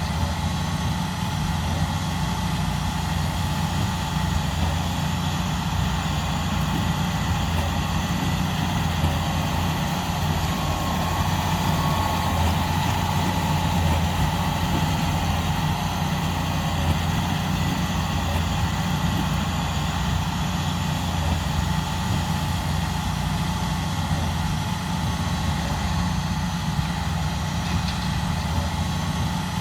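Diesel engine of a John Deere 8RX tracked tractor running steadily under load, a constant low drone with a steady higher whine over it.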